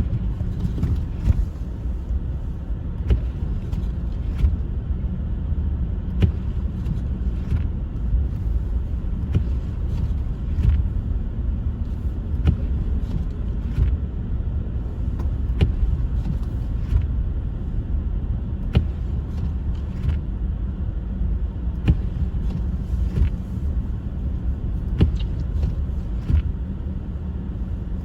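Car driving on a snow-covered road: a steady low rumble of engine and tyres, with frequent short knocks and clicks.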